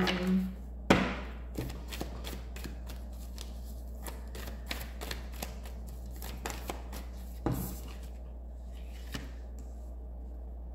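Tarot cards being shuffled and handled: a run of irregular soft snaps and clicks, with louder ones about a second in and again near seven and a half seconds, over a low steady hum.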